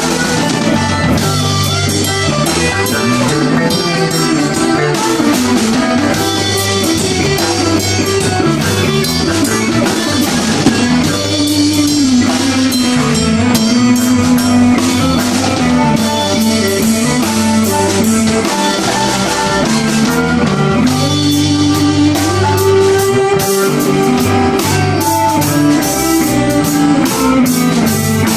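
Live rock band playing an instrumental passage: electric guitar, electric bass and drum kit, with long held lead notes that slide in pitch.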